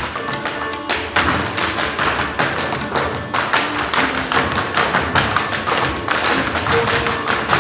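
Rapid, irregular taps and thuds of dancers' feet striking a stage floor, several a second, over music.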